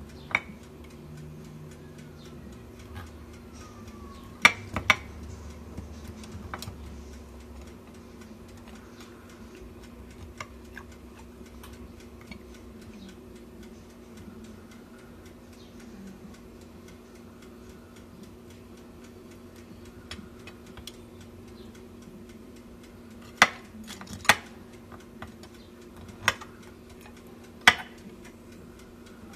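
A metal table knife clicking and scraping against a roasted marrow bone and a ceramic plate: a few sharp clicks, a pair about four seconds in and four more near the end, with quieter scraping between, over a steady low hum.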